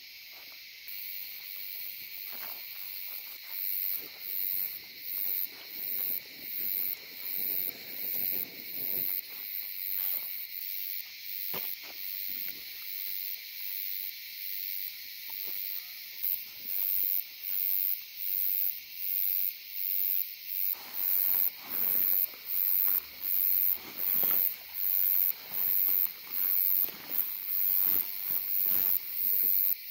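Insects calling: a steady high drone with a sharper, very high chirp pulsing about once a second, growing louder. Faint rustles and knocks from gear being handled sit underneath.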